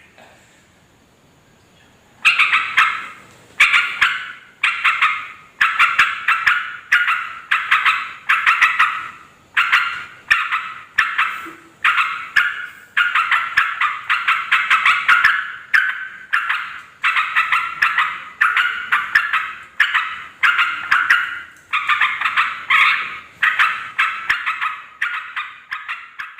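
Yellow-vented bulbul (trucukan) giving its loud, bubbling chatter call. The bursts come roughly once a second and start about two seconds in.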